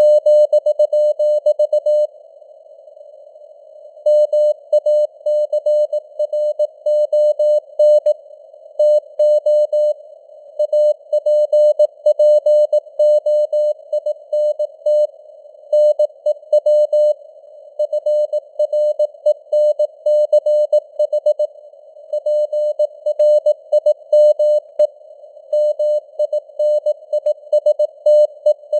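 Morse code sent at 18 words per minute: a single steady mid-pitched tone keyed on and off in dots and dashes, over a faint hiss of simulated receiver noise, with the signal's strength slowly rising and falling (simulated fading, QSB). The keying stops for about two seconds near the start, then runs on.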